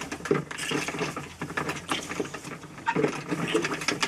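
Ducks dabbling and drinking at a plastic poultry waterer on a straw floor: a rapid, irregular clicking and pattering of bills in water and on straw.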